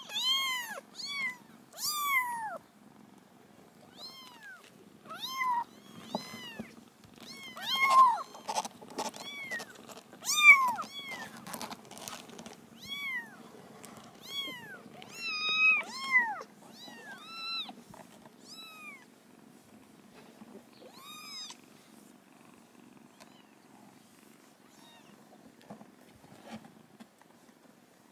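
Kittens mewing in a string of short, high-pitched calls that stop after about twenty seconds, over steady low purring.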